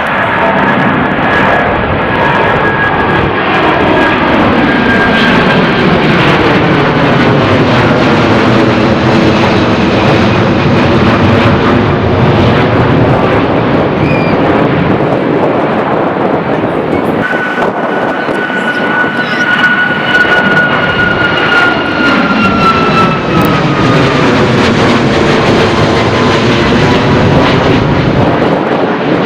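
Jet airliners climbing out low overhead on take-off, one after another. Each brings loud, steady jet engine noise with a high whine that falls in pitch as it passes; a second aircraft comes in about 17 seconds in.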